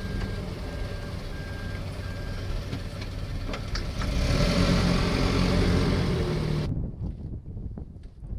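A motor vehicle's engine running steadily, with a short high beep repeating at even intervals for the first couple of seconds. It grows louder about four seconds in and cuts off abruptly near the end.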